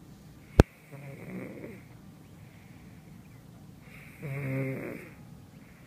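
A domestic cat snoring: two snores a few seconds apart, each a low rasp with a hiss over it, the second louder. A sharp click comes about half a second in.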